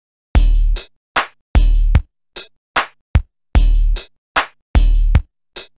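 Hip hop backing beat: heavy, long booming bass-drum hits with short sharp hits between them.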